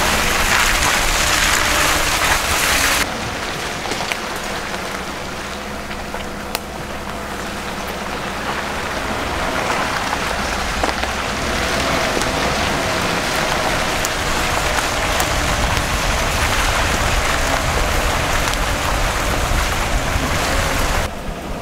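Pickup truck driving slowly along a dirt trail in the woods: a steady rushing noise of tyres on the trail with the engine running low underneath. The level drops abruptly about three seconds in and again near the end.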